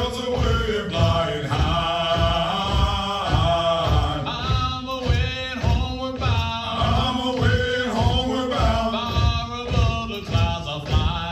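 Marine Corps hiking cadence: male voices chanting a marching song over a steady low beat about twice a second.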